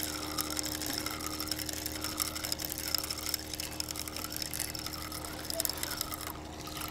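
Spinning reel being cranked to wind in line and retrieve a rig. It makes a steady whirring with small clicks, in a pattern that repeats about once a second with each turn of the handle.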